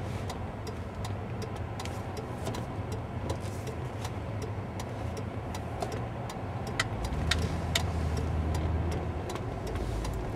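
Inside a car's cabin: steady engine and road hum with a turn signal clicking while waiting to turn left. About seven seconds in, the engine note grows louder as the car pulls through the turn.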